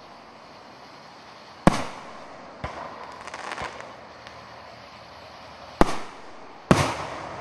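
Aerial fireworks going off: a sharp bang a little under two seconds in, a spatter of smaller pops just after, then two more loud bangs close together near the end.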